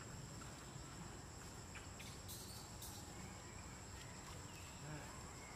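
Faint outdoor ambience of insects: a steady high-pitched drone of crickets over a low background rumble, with a few faint ticks about two to three seconds in.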